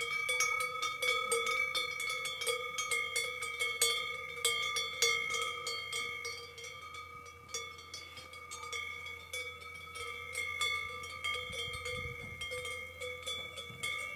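Cowbells on grazing cattle clanking irregularly, with many overlapping strikes and a steady metallic ringing, growing somewhat fainter toward the end.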